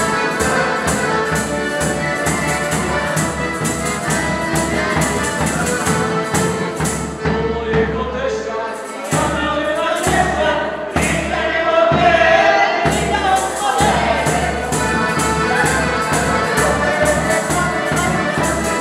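Polish folk band playing a lively dance tune, an accordion carrying the melody over a bass drum beating a steady fast rhythm. A voice sings along over the middle of the passage, and the drum drops out briefly about eight seconds in.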